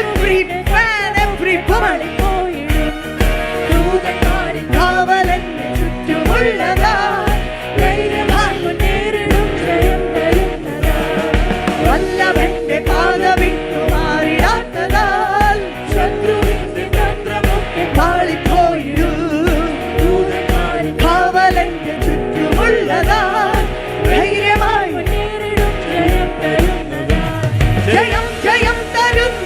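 Malayalam Christian worship song: singing over a band with a steady beat.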